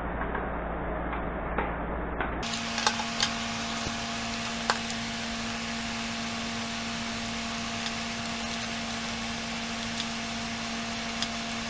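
Toothbrush bristles scrubbing the corroded plastic battery compartment of an electric fly swatter, a scratchy rustle with scattered small clicks and knocks. From about two seconds in, a steady low hum runs underneath.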